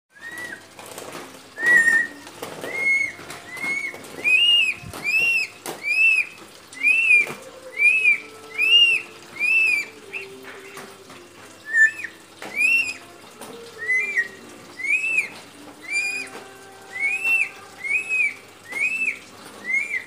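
New Guinea friarbird (Papuan koak) calling: a loud, repeated series of short arched notes, about three every two seconds, with a brief pause about halfway. A few sharp knocks sound between the calls in the first six seconds.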